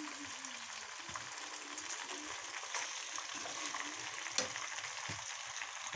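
Macaroni and egg frying in a steel kadai with a steady sizzle, a steel spoon stirring and scraping through it. There is a sharper click of the spoon against the pan about four and a half seconds in.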